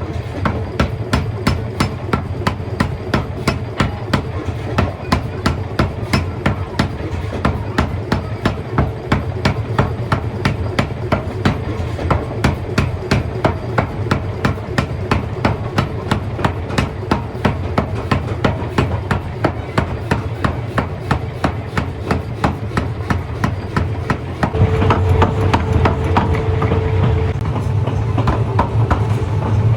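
Mechanical forging hammer striking metal in a fast, even rhythm of about two to three blows a second, over a steady machine hum. About 25 seconds in, the machinery grows louder.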